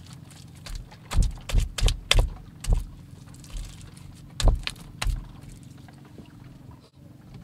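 Hands slapping and patting wet clay-and-straw mud as it is shaped into a mud stove: about a second in, five heavy wet slaps in quick succession, then two more a couple of seconds later.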